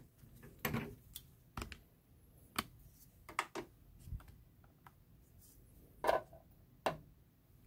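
Scattered light clicks and knocks, about eight at irregular intervals, from handling a small brushless outrunner motor: freeing it from a small bench vise and setting it down on a plastic digital kitchen scale.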